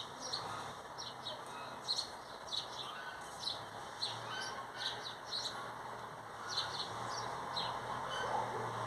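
Small wild birds chirping: many short, high calls scattered throughout, over a faint low hum.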